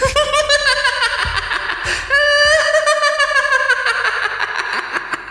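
A ghostly woman's shrill, high-pitched cackling laugh (gelak mengilai) in two long runs, trailing off in an echo.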